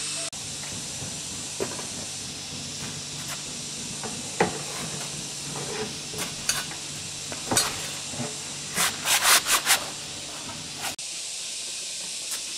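Steady hiss with scattered short knocks and clicks, including a quick run of about five louder knocks just before the middle.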